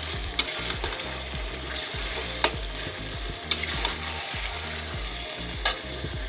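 Chicken pieces with onion and tomato paste sizzling in hot oil in a metal wok, stirred with a metal spatula. The spatula knocks sharply against the pan four times.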